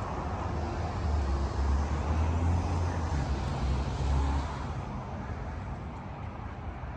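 A motor vehicle passing on the street, a low rumble that swells about a second in and fades away after about four and a half seconds, over steady town traffic noise.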